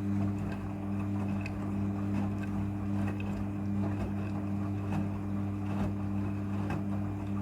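Front-loading washing machine rinsing a carpet: a steady motor hum with water sloshing in the turning drum and a few light knocks.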